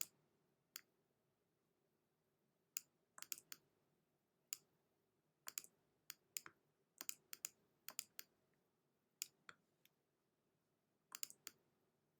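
Computer mouse clicking at irregular intervals, single clicks and quick pairs or short clusters about every second or so, over a quiet background.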